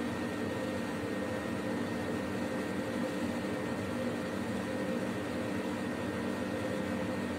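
Steady background hum with hiss, like a fan or air conditioner running, with no distinct marker strokes standing out.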